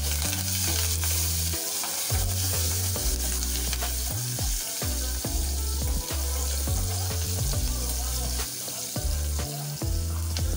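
Green chillies, dried red chillies and curry leaves sizzling in hot sesame oil in a stainless steel pot, the tempering for a tamarind curry, while a ladle stirs them with many short clicks and scrapes against the pot.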